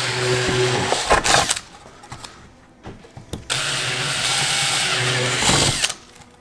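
Makita cordless drill boring out pilot holes to 1/4 inch in a plastic dash tray, motor whirring with the bit cutting through. The first hole finishes about a second and a half in, and after a short pause the second hole is drilled until near the end.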